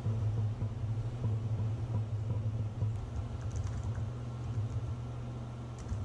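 Typing on a laptop keyboard: light, quick key clicks starting about halfway through, over a steady low hum.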